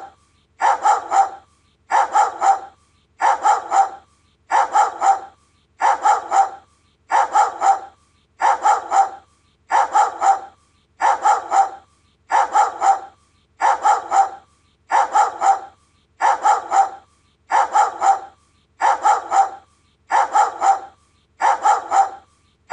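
Doberman barking in quick groups of two or three barks, repeating at a very even pace, about one group every second and a half.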